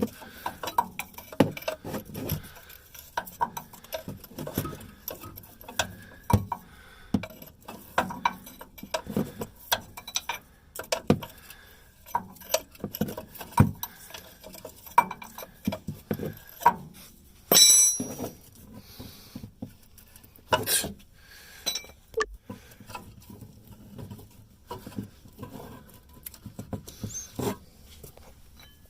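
Open-end wrench clinking and clicking against a seized shock absorber mounting nut as it is turned off a little at a time, in irregular metal taps, with one louder scrape about two-thirds of the way through.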